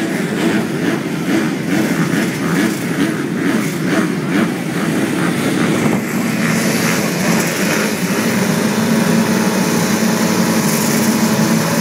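A pack of MX2 motocross bikes running together at the start line in a dense, steady engine drone, with the 30-second board up before the gate drops.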